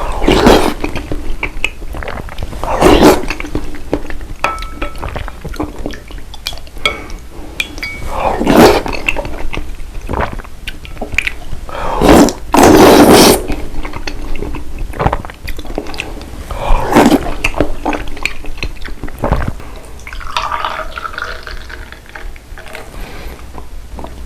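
Close-miked eating and drinking at a table: a series of loud, wet liquid sounds every few seconds, one lasting over a second about twelve seconds in, with small clicks and taps in between.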